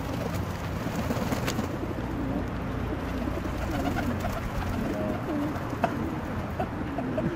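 Domestic pigeons cooing over and over, with a couple of short sharp taps.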